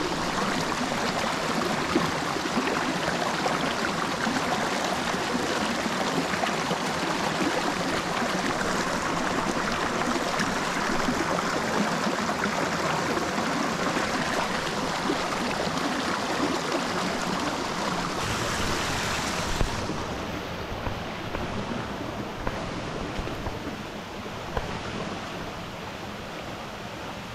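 Small mountain creek rushing and babbling over rocks, a steady wash of water. From about twenty seconds in it becomes quieter and duller.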